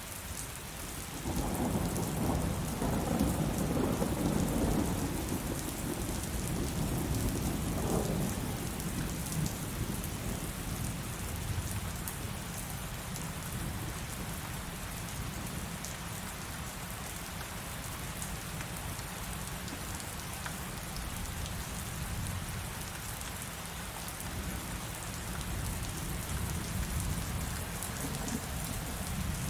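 Heavy rain falling steadily, with a thunder rumble that swells about a second in, is loudest over the next few seconds, and fades away by about eight seconds in. Low rumbling goes on under the rain after that.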